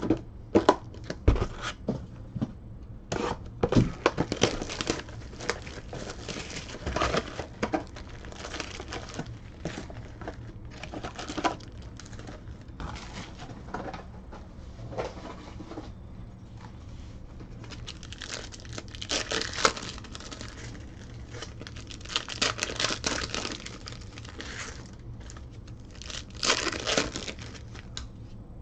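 2014 Panini Elite Extra Edition baseball card packs being handled and opened: light knocks and clacks of cards and packs set down on the table in the first half, then the crinkle and rip of pack wrappers being torn open in several longer stretches in the second half.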